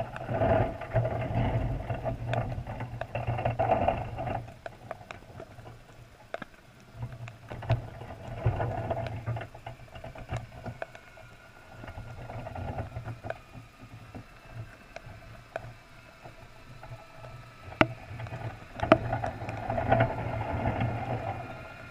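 Muffled underwater noise heard through a waterproof camera housing on a crab trap: low rumbling surges that come and go every few seconds, with scattered clicks and knocks.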